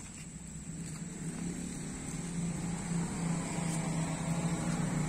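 A motor vehicle's engine running steadily, a low hum that grows louder over the first couple of seconds.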